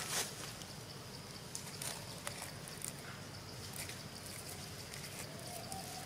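Steady outdoor background noise with scattered faint clicks and rustles, and a faint steady tone near the end.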